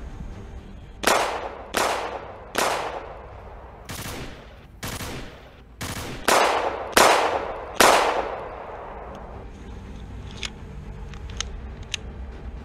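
A string of about nine loud shots, unevenly spaced over some seven seconds, each with a long fading tail. A few faint sharp clicks follow near the end.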